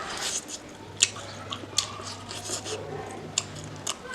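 Close-miked mouth sounds of someone eating noodles and chicken: wet, squishy chewing with several sharp smacking clicks spread through the moment.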